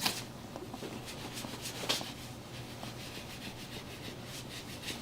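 Rubbing and rustling of bodies and clothing against each other and the treatment table during an assisted stretch, with two brief sharper sounds, one at the start and one about two seconds in.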